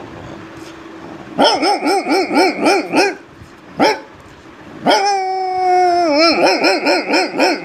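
A man imitating a dog with his voice: a fast run of short barks, about four a second, a single yelp, then a long held note that bends down into another rapid run of barks.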